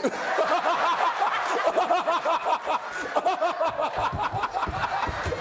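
Studio audience laughing, many voices at once after a punchline.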